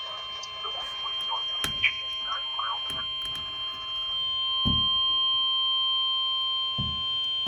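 NOAA Weather Radio warning alarm tone, a steady 1050 Hz tone held without a break, heard through a weather radio receiver during the required weekly test. It gets a little louder about halfway through, and a few low thumps fall under it.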